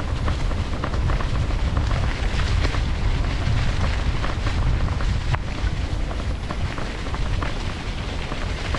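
Mountain bike riding fast down a leaf-covered forest trail: steady wind buffeting on the microphone over tyres rolling across dry leaves, with many small scattered clicks and rattles from the trail and the bike.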